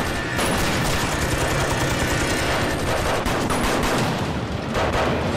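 Heavy gunfire: rapid, overlapping shots with machine-gun fire, going on without a break.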